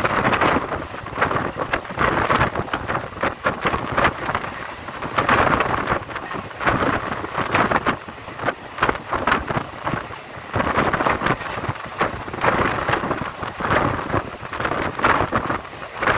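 Wind rushing and buffeting on the microphone at the open window of an express passenger train coach running at speed, mixed with the train's running noise on the rails. The loudness surges and drops unevenly throughout.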